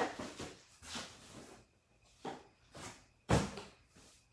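Rustling and handling of items and packaging, with a single solid thump about three seconds in, as of something set down on a table.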